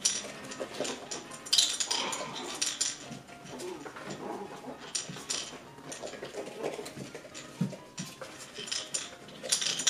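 Poodle puppies playing: a run of scrabbling, clicks and clattering from paws and toys, with a few faint puppy whines in between.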